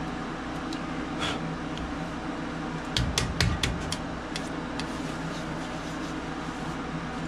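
Steady hum of shop machinery, with a quick run of sharp clicks and knocks about three seconds in as a small tool is handled at the bowl on the lathe.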